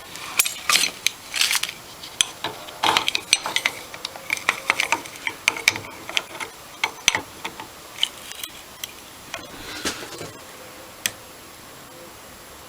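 Irregular light metallic clinks and taps of a hand tool working at the screwed top of a seized aluminium Amal carburettor clamped in a vise, the top only just starting to turn. The clinks thin out and stop about eleven seconds in.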